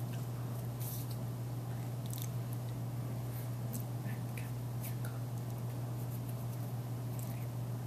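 A steady low hum, with scattered faint clicks and rustles from a person's hands, mouth and clothing while signing.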